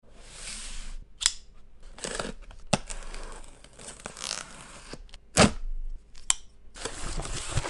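A folding knife slicing through packing tape on a cardboard shipping box: scraping strokes of the blade along the tape, broken by a few sharp knocks and clicks, the loudest about five and a half seconds in. Near the end the cardboard rustles for a longer spell as the box is handled.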